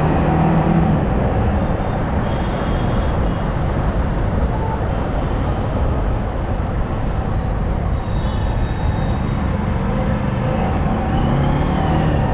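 Yamaha R15M motorcycle riding in slow city traffic: its single-cylinder engine is running under way beneath a steady rush of wind and road noise.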